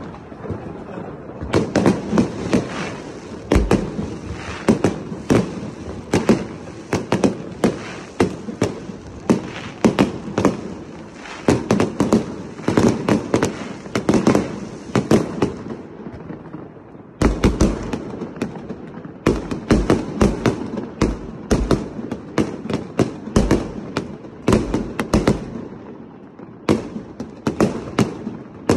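Aerial fireworks display: shells bursting overhead in quick succession as a dense string of bangs. There is a short lull about halfway through, then a heavier run with deeper booms.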